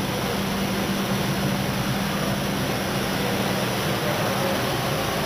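ERSA Versaflow selective soldering machine running: a steady hum with a constant low tone over even, fan-like noise, unchanging throughout.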